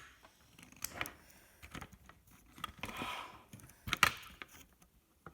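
Clicks, knocks and light rattling as the portable TV receiver's circuit board and plastic parts are handled and tugged while being taken apart. A sharp knock comes at the start and another about four seconds in, with a brief scraping rustle about three seconds in.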